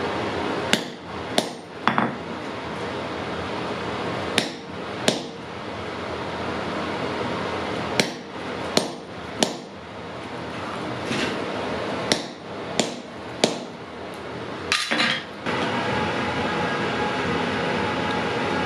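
Blacksmith's hammer striking metal on an anvil: about a dozen separate ringing blows at uneven intervals, over a steady rushing noise.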